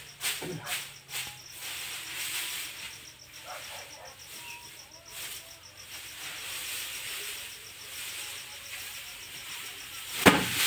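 Dry rice straw rustling and crackling as a bundle of paddy is gathered up by hand, then, near the end, one loud thwack as the bundle is slammed down to thresh the grain out. A steady high insect chirping runs underneath.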